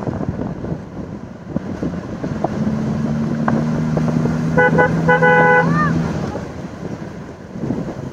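Vehicle horn honking twice in quick succession about halfway through, over the rumble and wind noise of an open vehicle driving; a steady low hum runs beneath for a few seconds around the honks.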